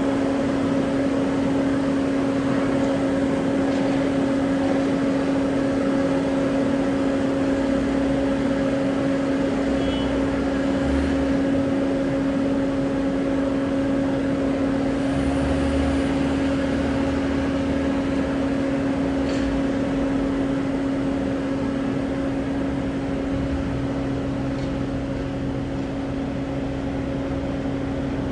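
Steady machinery drone on an airport apron beside a parked airliner, a constant low hum over a rushing bed, with fainter low rumbles coming and going.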